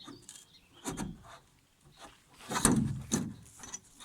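Knocks, clicks and rubbing as an outrigger canoe's iako is handled and fitted into the ama, loudest about two and a half to three seconds in.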